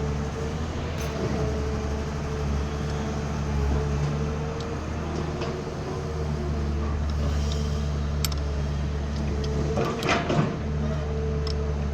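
A machine running with a steady low hum, with a short rattling clatter about ten seconds in and a few light clicks.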